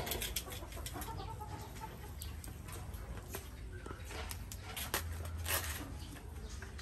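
Chickens clucking from a cage, with the rustle and crackle of a banana leaf being handled; the rustling is loudest about five seconds in.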